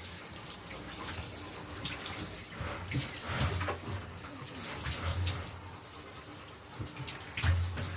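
Shower water running and splashing steadily while a dog is washed, with a few low muffled bumps.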